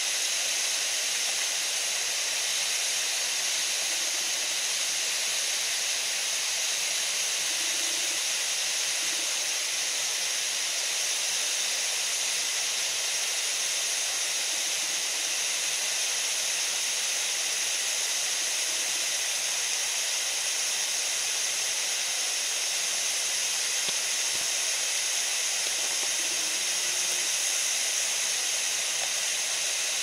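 Waterfall pouring over a rock face: a steady, unbroken rush of falling water.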